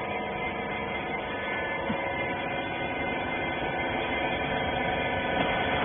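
Clothes baler machine's motor humming steadily, a little louder toward the end.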